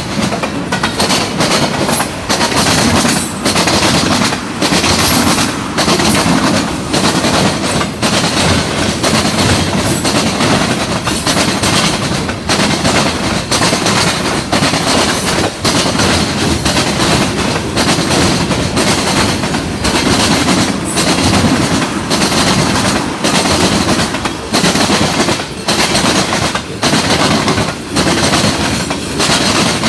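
Norfolk Southern freight train rolling past, its steel wheels clicking and clattering over the rail joints in a steady stream of knocks.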